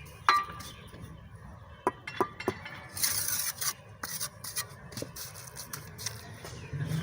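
Steel mason's trowel clinking against bricks and scraping mortar. A sharp ringing clink comes about a quarter second in, three quick taps follow around two seconds, and a scrape comes about three seconds in, followed by further light taps.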